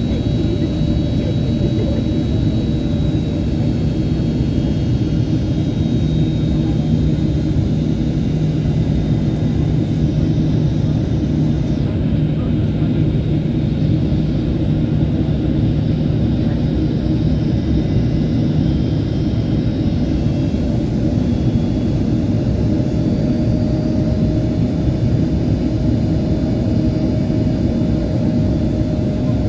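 Steady cabin noise inside a jet airliner in flight: engine and airflow noise heard through the fuselage as a deep, even rumble with a few faint steady tones over it.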